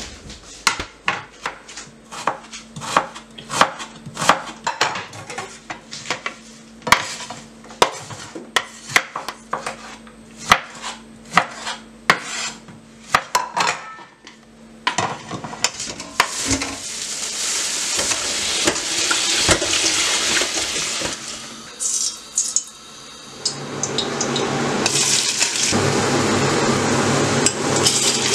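A knife chopping vegetables on a wooden cutting board, a run of quick sharp strokes for about the first half. Then sliced onions frying in hot oil in a pot, a steady sizzle that grows louder near the end.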